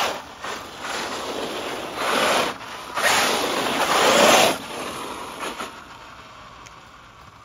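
Large-scale electric RC trophy truck, a Losi Super Baja Rey 2.0, driving and sliding on wet gravel: a gritty rush of tyres churning loose stones, with loud surges about two seconds in and again from three to four and a half seconds as it passes close, then fading away.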